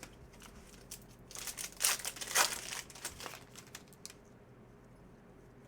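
Trading card pack wrapper crinkling and tearing, in a dense crackly run between about one and three seconds in, then a few faint clicks of cards being handled.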